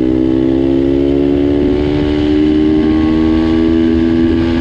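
Turbocharged Loncin single-cylinder pitbike engine running hard under way, its note holding high and slowly rising as the bike picks up speed, with wind rumbling on the microphone.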